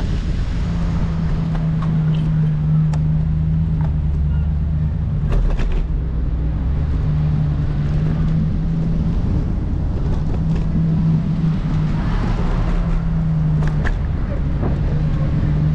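A vehicle engine running at a steady pitch with a low rumble beneath, the hum dropping out briefly a few times, with scattered light clicks and knocks.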